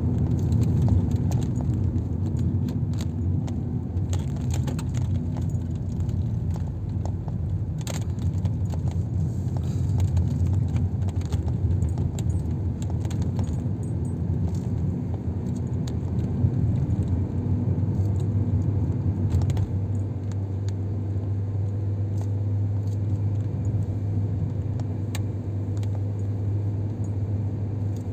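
Car driving along a winding road, heard from inside the cabin: a steady engine hum and road rumble with frequent small rattles and clicks from the interior. The engine note settles into a steadier hum about two-thirds of the way through.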